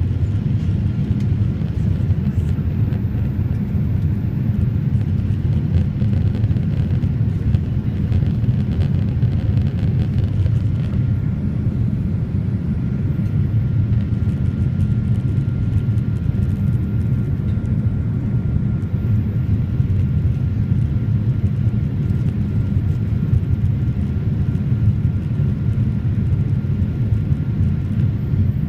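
Cabin noise inside a Boeing 787 Dreamliner in its climb after takeoff: a steady, even low rumble of engines and airflow. A faint thin steady tone joins it about eleven seconds in.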